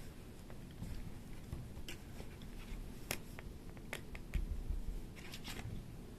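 Kittens moving about on a hard floor: scattered light clicks and taps, with a few soft thumps about four seconds in.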